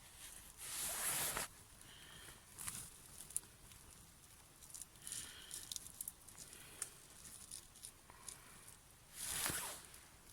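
Quiet rustling and small clicks of close handling, with two louder rushing swells about a second long, one near the start and one near the end.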